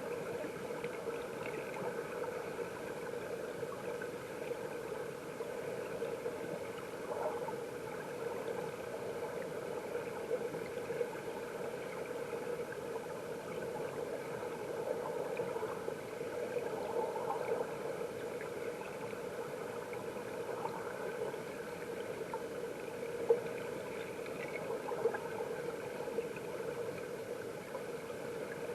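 Stream water flowing, heard from underwater: a steady, muffled rushing with bubbling, and two brief ticks near the end.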